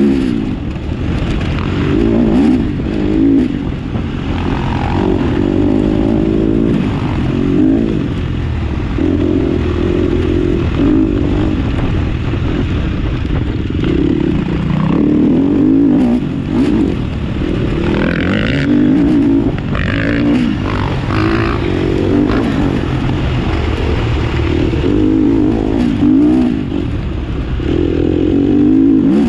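A vehicle engine running continuously under a rider's control, revving up and down again and again over a low rumble.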